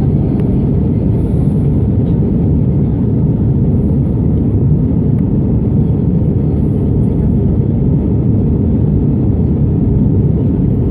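Steady low rumble of an airliner's engines and airflow heard inside the passenger cabin during the climb after takeoff.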